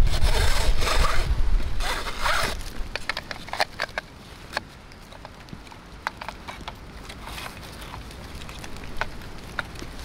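Trail camera's fabric strap pulled through its buckle in a few quick rasping pulls, then scattered small clicks and taps as it is fastened around the tree. Wind rumbles on the microphone during the pulls.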